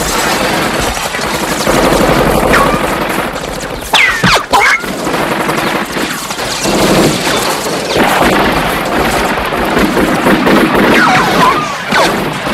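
Sustained barrage of automatic gunfire, many guns firing at once, as a film sound effect. A cluster of sharper, louder shots comes about four seconds in.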